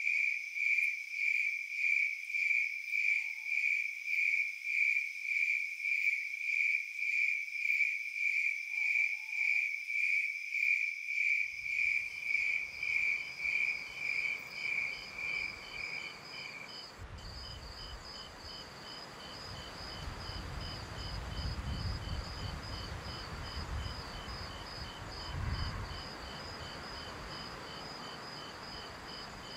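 Night crickets chirping in a steady pulse of about two chirps a second, with a couple of faint hooting calls in the first ten seconds. About twelve seconds in, a soft outdoor hiss with low rumbles fades up, and the crickets stop around sixteen seconds, leaving fainter, higher insect trilling.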